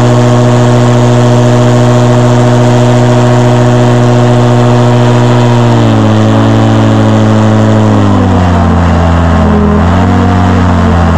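Airboat's stock Yamaha Apex four-cylinder engine, with a Whirlwind propeller, running loud at high, steady revs. After about six seconds the revs ease down in steps, with a brief dip and pick-up near the end.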